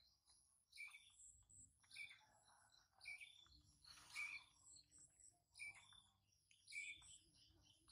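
Faint bird chirps outdoors: short, high calls repeating about once a second, over a quiet background.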